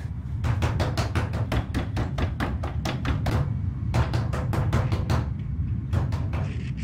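A fist banging rapidly on a wooden door, about six blows a second in two long runs, then two more blows near the end, over a steady low drone.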